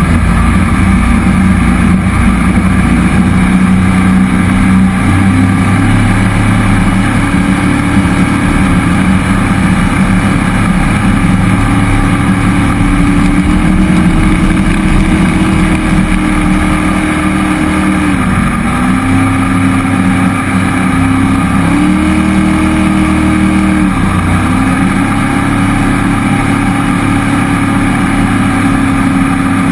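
Jet boat's cammed 5.3-litre LS V8 running steadily under way. The engine note drops briefly a little past halfway and again a few seconds later as the throttle is eased and reapplied.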